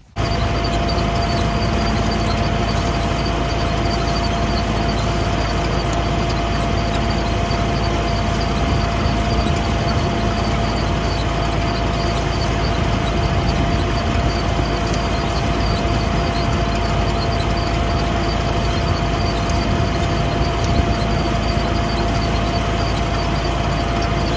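Vintage John Deere tractor running steadily in the field, engine rumble and machinery noise with a constant high whine running through it.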